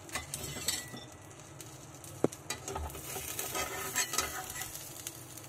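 Metal spatula scraping and tapping against a nonstick frying pan as it is worked under a pizza to lift it and check the cooked base, with one sharp tap a little over two seconds in. Faint sizzling comes from the hot pan.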